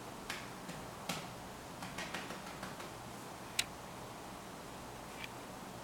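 About six short, sharp clicks at uneven intervals, the loudest about three and a half seconds in.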